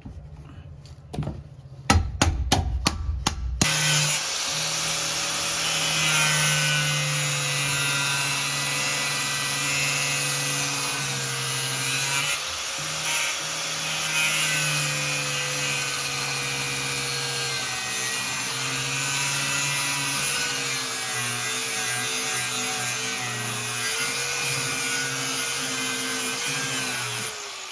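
A few loud metal knocks, then a power tool running steadily for over twenty seconds, its pitch sagging now and then as it takes load, before it cuts off near the end.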